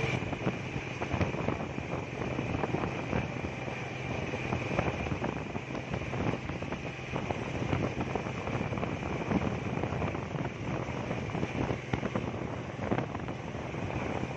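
Steady highway traffic noise from distant heavy trucks, with wind gusting on the microphone.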